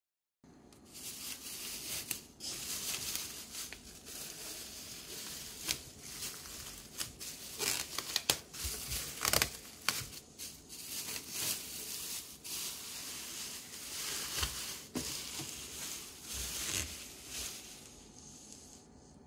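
Clear plastic bag wrapped around a new sewing machine being pulled off and crumpled by hand: a continuous crinkling rustle with many sharp crackles, fading near the end.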